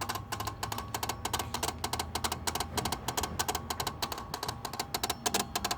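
Rapid, even clicking, about eight to ten clicks a second, from somewhere on the driver's side of an Acura Legend, heard only while the headlights are switched on. The owner cannot place its source and says it doesn't really sound like an electrical short.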